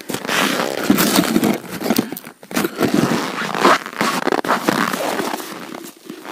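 Boots crunching and scraping on hard frozen snow, with stiff winter clothing rustling, as a person gets up and steps about. The crunches come in an uneven run of short crackles.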